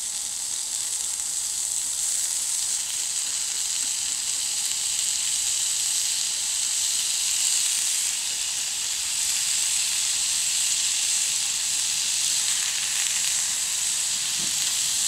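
Bacon frying in a skillet, sizzling loudly and steadily.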